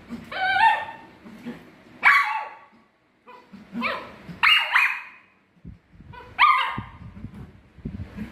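Toy poodle giving about half a dozen short, sharp barks, each dropping in pitch, demand-barking at being refused a toy. A few low knocks near the end.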